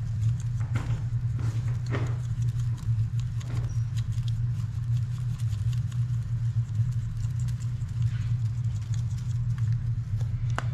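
A plastic seasoning shaker shaken over a metal sheet pan of fish fillets, a few soft, irregular rattling shakes, over a steady low hum.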